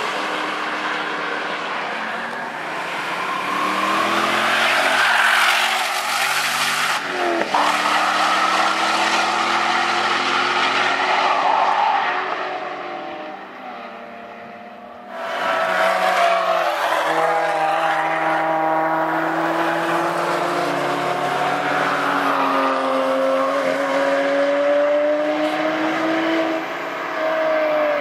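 High-performance car engines accelerating hard past a racetrack, the revs climbing and dropping again and again through gear changes over several passes. The sound fades away about 13 seconds in, then cuts suddenly to another loud pass.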